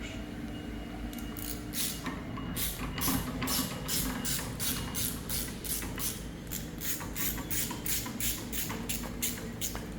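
Ratchet socket wrench clicking in a steady rhythm, about three to four clicks a second, as the old nozzle holder is undone; the clicking starts about two seconds in.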